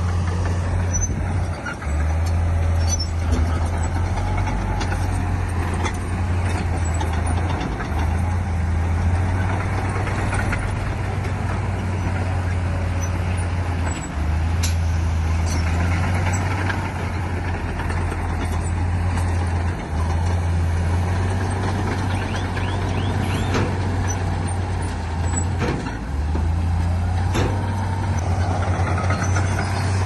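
Heavy diesel earthmoving machinery running steadily with a low engine drone, with a few sharp clanks and knocks over it in the second half.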